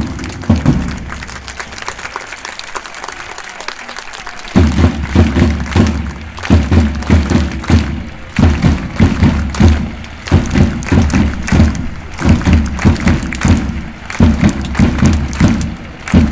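Football supporters applauding the players. About four seconds in, a steady beat of low thuds starts, roughly two a second.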